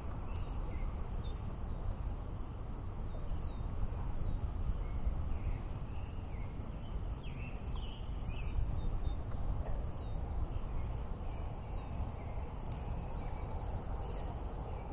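Outdoor lake ambience: a steady low rumble with scattered faint bird calls throughout.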